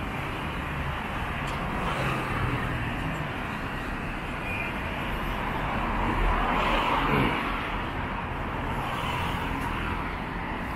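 City street traffic: a steady hum of cars, with one vehicle passing close and loudest about two-thirds of the way in, its pitch falling as it goes by.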